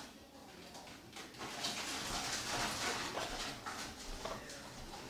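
Orange-winged Amazon parrot making quiet, hissy noises with a few short clicks, louder in the middle.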